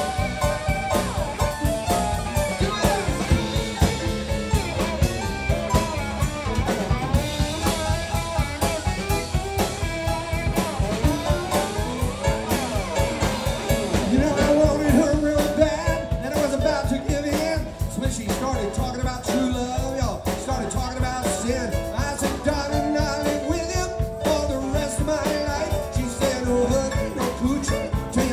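Live band playing an instrumental passage: an electric guitar solos with bent notes over drum kit and bass.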